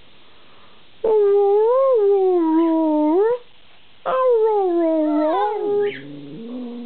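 Pet dog howl-'talking': two long drawn-out howls of about two seconds each, wavering in pitch and rising at the end, followed near the end by a softer, lower moan.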